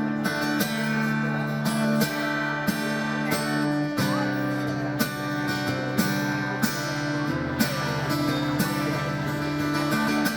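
Background music of strummed acoustic guitar with a steady beat.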